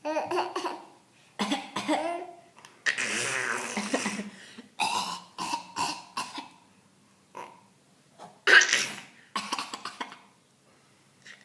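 A small boy coughing again and again in imitation of his father's cough: about seven separate coughing bursts with short pauses between them, the loudest near the end.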